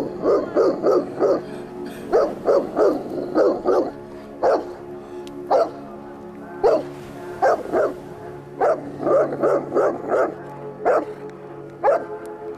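Bernese Mountain Dog barking over and over in quick runs of several barks, with single barks and short gaps between the runs. It is angry barking, aimed at a snapping turtle.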